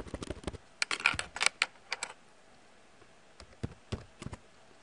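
Typing on a computer keyboard: a fast run of keystrokes over the first two seconds, a pause, then a few separate keystrokes near the end.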